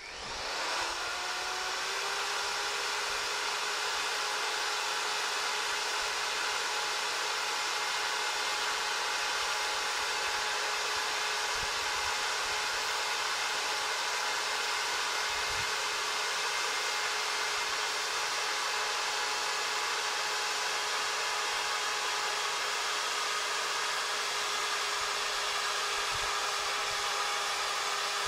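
Heavy-duty electric drill motor spinning up with a rising whine, then running steadily under load as it turns a metal ground screw pile down into the soil.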